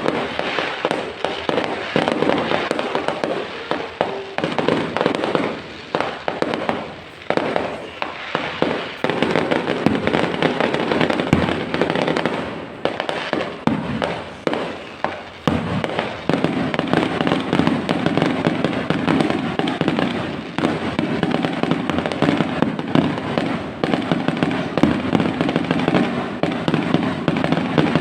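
Fireworks going off in a dense, continuous barrage of bangs and crackling. In the first half the noise comes in repeated swells that die away; from about halfway on it becomes a steadier, thicker crackle.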